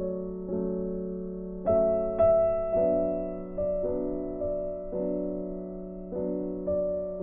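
Background music played on a piano-like keyboard, with sustained chords struck anew about once a second.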